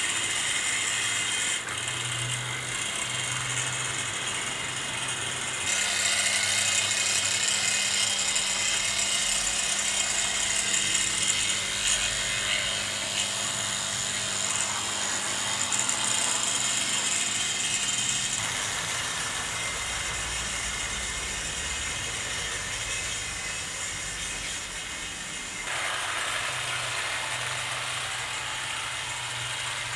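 Tri-ang/Hornby 00 gauge model trains running along the track: a steady mechanical running sound from the locomotives' motors and wheels. It changes in character abruptly about six, eighteen and twenty-six seconds in.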